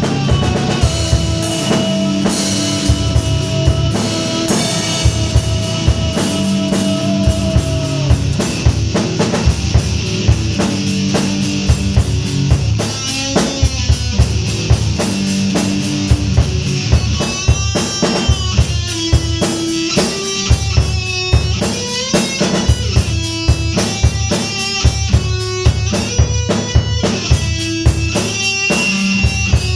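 Metal song: a drum kit with a busy kick drum and distorted electric guitars playing held chords. About halfway through, a higher line with gliding, bending notes comes in over the rhythm.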